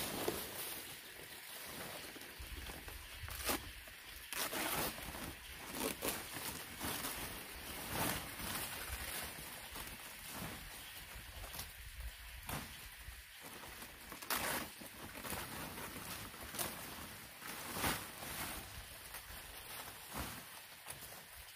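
Large fan-palm leaves rustling and swishing as they are picked up and laid onto a pile, in irregular crackly strokes a second or two apart.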